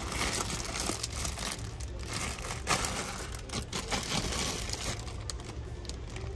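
Plastic packaging crinkling and rustling as it is handled, in a dense, irregular run of crackles.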